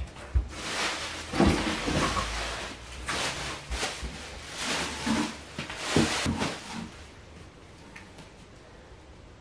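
Belongings and cardboard boxes being picked up and moved about on the floor: irregular rustling with several knocks, stopping about seven seconds in.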